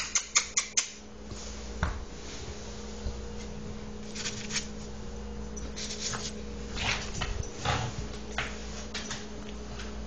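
Rustling and short clicks from a hand stroking a long-haired dog's fur close to the phone's microphone, with a quick run of clicks in the first second and scattered ones later, over a faint steady hum.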